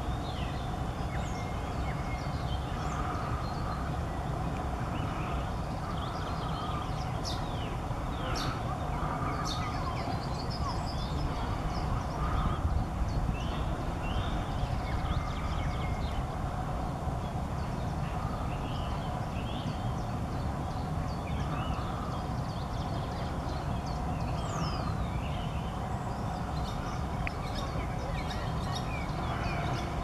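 Many short songbird chirps and song phrases scattered through, over a steady low outdoor rumble.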